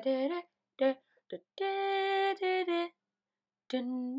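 A woman singing a slow melody with long held notes that slide between pitches, broken by short silent gaps.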